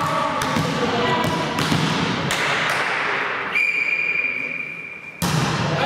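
Volleyball sports hall with players' voices and ball and floor knocks echoing. About halfway through, a referee's whistle blows one long steady note for nearly two seconds, the whistle for the next serve.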